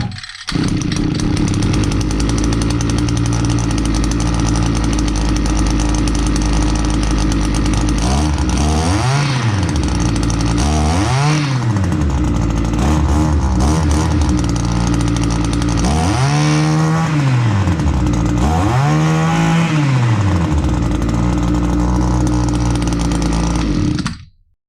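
Echo PPT280 pole saw's small two-stroke engine running at a steady idle and revved up and back down four times, twice around a third of the way in and twice about two-thirds through, then cutting off just before the end. It starts and runs now that the stiff carburettor metering diaphragm has been dealt with.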